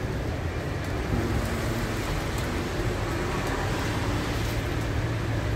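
Steady city street traffic noise: a continuous low rumble of vehicles with an even hiss over it.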